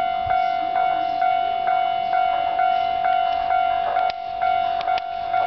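Japanese railway level-crossing warning bell ringing steadily, about two strokes a second: the signal that a train is approaching the crossing.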